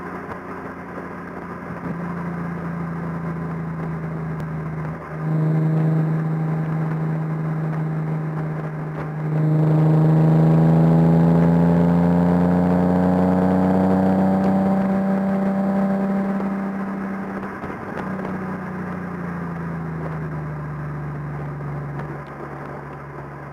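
Nissan 370Z Nismo's 3.7-litre V6 heard from inside the cabin while lapping a track, running steadily at first. It gets louder about five seconds in and louder again under acceleration a few seconds later, climbing slowly in pitch. Then it eases off and falls in pitch near the end.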